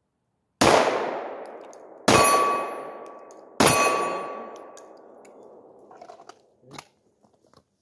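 Three shots from a Glock pistol about a second and a half apart, each echoing and fading slowly. The second and third are followed by the ringing ding of a hit on a steel hexagon target.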